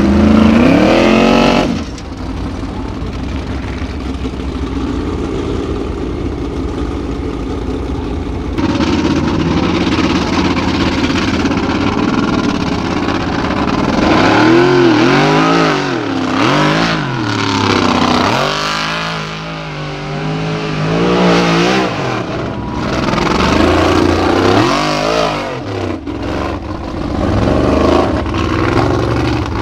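Formula Offroad cars' engines at high revs under load on a steep dirt climb. A loud revving climb-out cuts off suddenly about two seconds in, a steadier engine note follows, and from about halfway the engine goes through a series of rises and falls as the throttle is blipped on and off.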